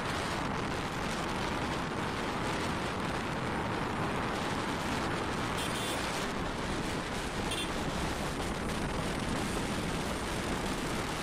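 Steady rushing wind noise buffeting the helmet-mounted microphone of a moving motorcycle, with engine and road noise underneath. Two short high beeps sound near the middle.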